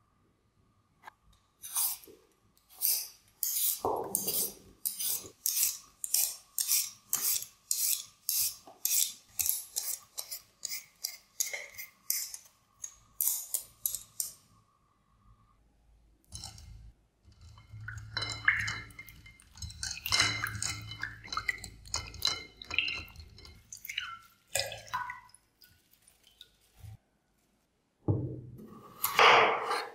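A Y-peeler's blade scraping the skin off a raw potato in short, regular strokes, about two a second, for over ten seconds. This is followed by a looser stretch of knocks and handling clatter, and near the end the peeled potato is set down on a bamboo cutting board with a thump.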